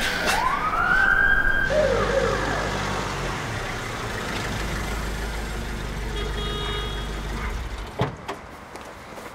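A police van's siren gives one short rising whoop and cuts off, then the van's engine runs steadily until it stops about eight seconds in with a sharp clunk.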